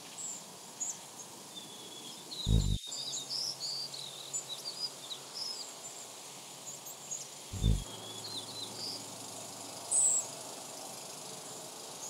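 Small songbirds giving short, high chips and twitters, scattered through, over a faint steady outdoor hiss. Two brief low thumps, about two and a half seconds in and just before eight seconds.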